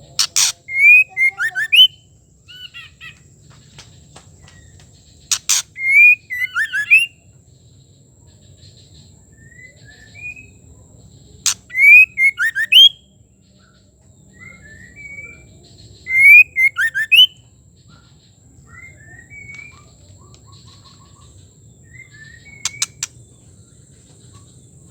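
Female white-rumped shama calling: four loud phrases, each a sharp click followed by a run of quick whistled notes, repeated about every five seconds, with softer short notes in between.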